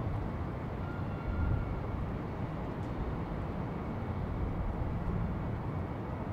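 Steady low rumble of city ambience with distant traffic, without any distinct firework bangs.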